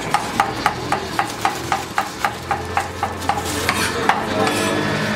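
A knife chopping food in quick, even strokes, about four a second, stopping about three seconds in.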